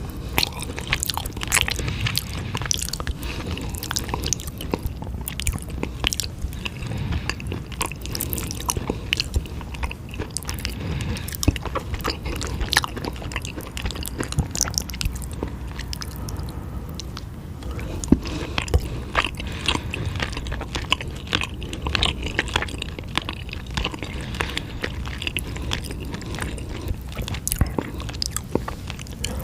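Close-miked chewing and biting of eel and spicy fire-chicken noodles, with many small wet clicks and crunches throughout.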